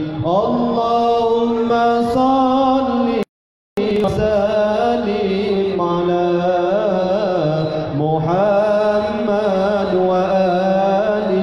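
Voices chanting a slow melodic chant with long-held notes that waver and glide between pitches. The sound cuts out completely for about half a second a little over three seconds in.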